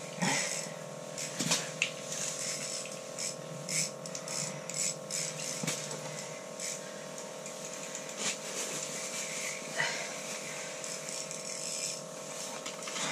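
Irregular light clicks and ratchety ticks from handling an ice-fishing rod and reel, over a steady hum.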